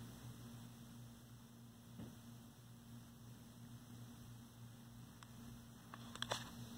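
Near silence with a steady low hum, and a brief paper rustle near the end as a picture-book page is handled.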